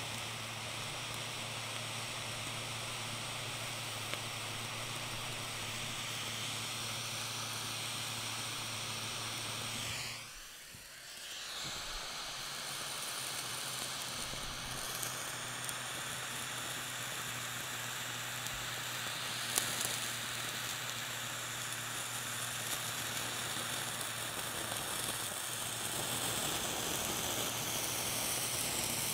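Handheld butane micro torch hissing steadily as its blue flame plays on a wedge of blue cheese. The hiss drops away briefly about ten seconds in, then comes back.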